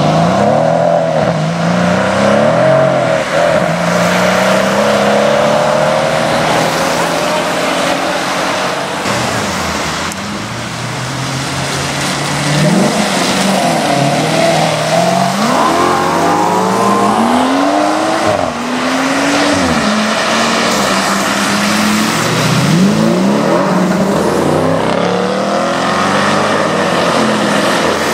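Sports cars accelerating hard away one after another on a wet road. A Brabus-tuned Mercedes-AMG C63 S estate's V8 revs out, then a Maserati GranTurismo's V8 climbs through the gears, pitch rising and dropping at each shift. Tyres hiss on the wet road throughout.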